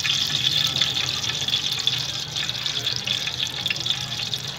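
Ghee sizzling and crackling as it melts and heats in an aluminium cooking pot, a dense crackly hiss over a steady low hum.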